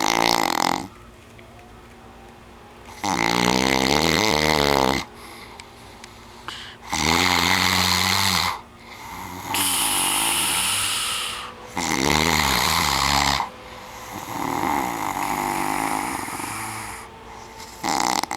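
A man snoring loudly in his sleep, in repeated bouts every two to four seconds, each one to three seconds long. Buzzing, rattling snores alternate with breathier ones.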